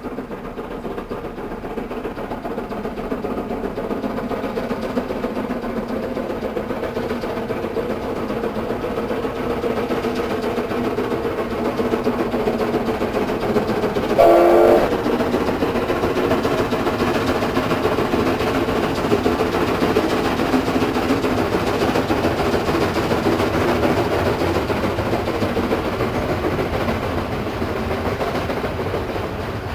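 Narrow-gauge steam locomotive hauling a train of loaded clay wagons, a steady running sound throughout, with one short whistle blast about halfway through.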